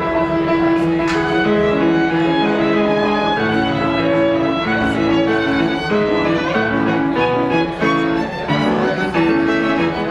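Live violin and grand piano duet, the bowed violin holding long notes over the piano accompaniment.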